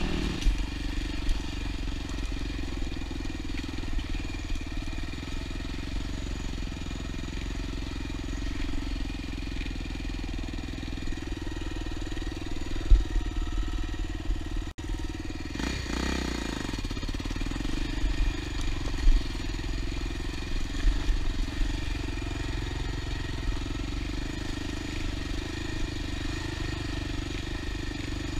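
Honda XR250 dirt bike's single-cylinder four-stroke engine running at steady low revs on the move, with a few sharp knocks from the bike over bumps. The sound cuts out for an instant about halfway through.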